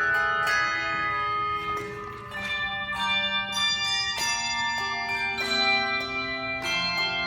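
Handbell choir playing: chords of several handbells struck together about every second, each ringing on into the next.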